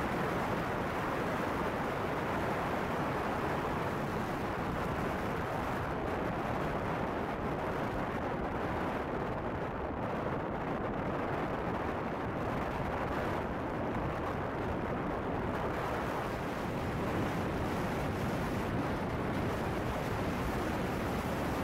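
A car driving at speed: a steady rumble of tyre, road and wind noise, heard from inside the car.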